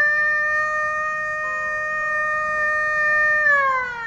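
Lightning alert siren from an ALRAS audio-visual alarm unit's pole-mounted horn speaker: one long wail held at a steady pitch, then gliding down about three and a half seconds in. It sounds as the warning of possible lightning activity in the area.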